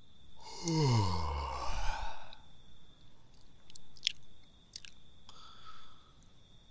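A snare trap being set off. A sound falls in pitch over about two seconds, with rustling over it. Two sharp clicks and a short rustle follow.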